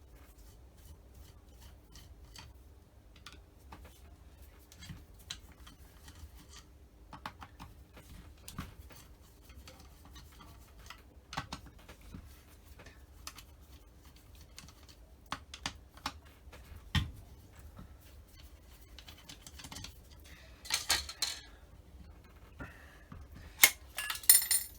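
Scattered small metallic clicks and taps of a screwdriver working the base-plate screws out of a Holley two-barrel carburettor, with a brief burst of clinking about three-quarters of the way through and again near the end as the loose parts are handled.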